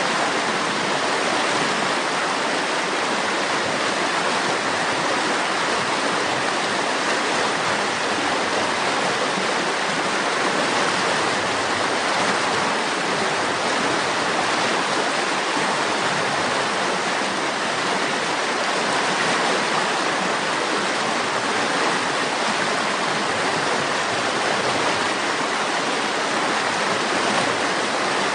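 River water running, a steady, even rushing with no change.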